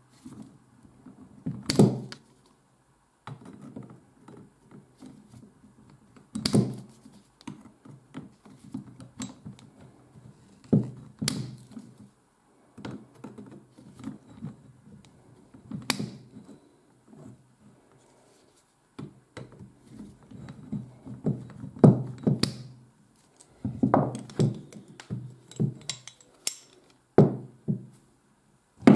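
Pliers working at the small bevel pinion gear inside a vintage breast drill's cast-iron gear frame, in repeated attempts. The sound is a sharp metal click or knock every few seconds, with low clattering and handling noise in between.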